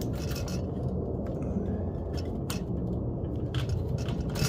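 A Weber kettle grill leg being wiggled in its socket on the bowl, making irregular clicks and knocks as its spring-button clip works toward the hole.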